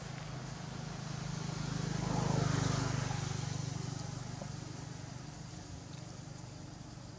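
A motor vehicle passing by: its engine hum grows louder to a peak about two and a half seconds in, then fades away.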